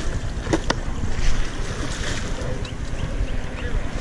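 Wind buffeting the microphone, a steady low rumble, with two sharp clicks about half a second in.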